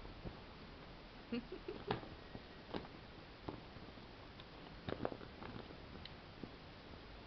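Dog gnawing on a bone: scattered, irregular clicks and cracks of teeth on bone.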